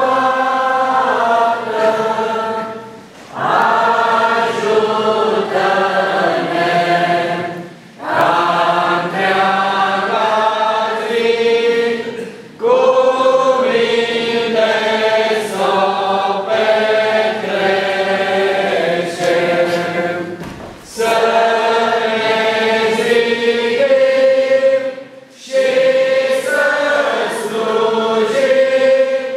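Church congregation singing a hymn together in many voices, line by line, with a short pause for breath between lines every few seconds.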